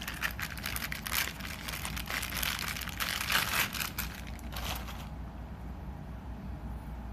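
Plastic packaging crinkling and rustling as it is handled and unwrapped, stopping about five seconds in.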